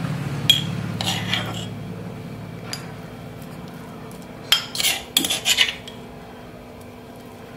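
Steel spoon scraping and clinking against a ceramic mortar and a porcelain plate while crushed bitter gourd is spooned out. A few light clinks come in the first two seconds, then a quick cluster of scrapes and taps about four and a half seconds in.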